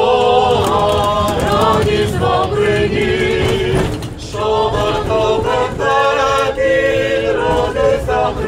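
A group of tram passengers singing a Ukrainian Christmas carol (koliadka) unaccompanied, over the low rumble of the tram's wheels. The singing breaks briefly about four seconds in, between lines.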